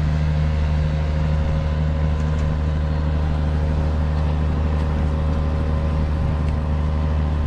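Boat engines running steadily as a ferry and an outboard motorboat head out across the river: a constant low drone that does not change.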